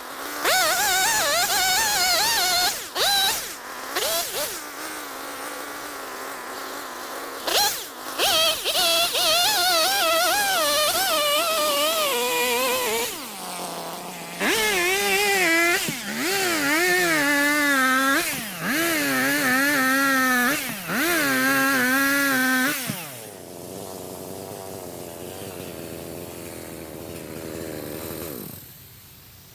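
Two-stroke chainsaw revving up and down again and again as it cuts, its pitch rising and falling, with short drops between cuts. About 23 seconds in it falls back to a steady idle, then shuts off near the end.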